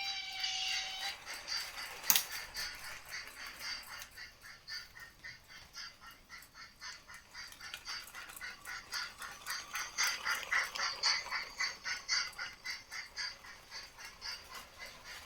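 Lego toy train sound effect: a short steady tone, a sharp click about two seconds in, then a rapid rhythmic pulsing of about four beats a second.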